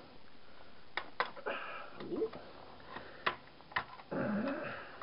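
A few sharp, separate clicks of small metal and plastic TV parts being handled and cut during scrapping, two quick ones about a second in and two more past the three-second mark.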